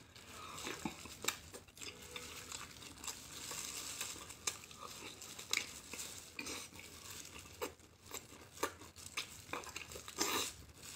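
Soft, close eating sounds: wet braised meat being chewed and pulled apart by hands in plastic gloves, with scattered small clicks and glove crinkles.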